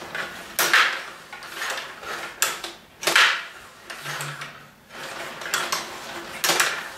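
Table hockey game in play: an irregular run of sharp plastic clacks and knocks as the puck strikes the figures and board and the control rods are slid and twisted, the loudest knock about three seconds in.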